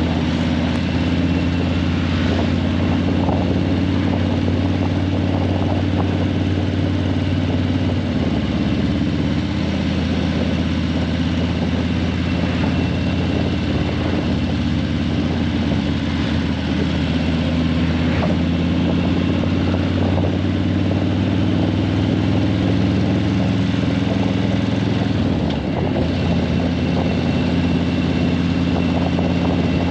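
Harley-Davidson Breakout 117's Milwaukee-Eight 117 V-twin running through Vance & Hines Eliminator 300 slip-on mufflers at low, fairly steady revs in traffic. The pitch steps up slightly about eight seconds in and dips briefly near the end, over a background of road and traffic noise.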